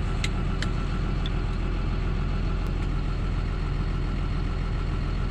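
John Deere tractor's diesel engine running steadily, heard from inside the cab, with two light clicks in the first second.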